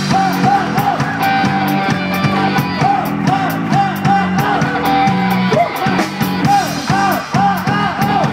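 Live rock band playing, heard from beside the drum kit: drums with regular cymbal strokes under guitars and a repeating melodic figure of about three notes a second.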